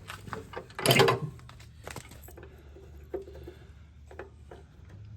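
Hand tools and metal parts being handled during a repair: a loud clatter about a second in, another about a second later, then scattered light clicks and knocks.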